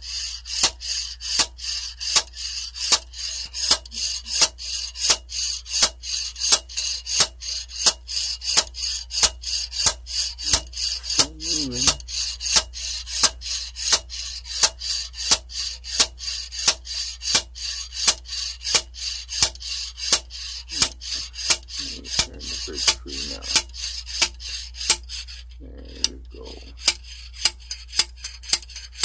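Hydraulic lifter being worked up and down in its bore in a small-block V8 engine block with a lifter puller tool: a steady rhythm of metallic clicks, about two to three a second, with a scraping rasp, pausing briefly near the end as the stuck lifter works its way out.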